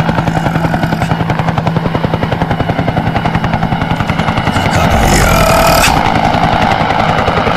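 Loud, rapid pulsing effects of a sound-system intro, like machine-gun fire or helicopter rotor beats, with a swooping electronic tone and a deeper rumble joining about five seconds in.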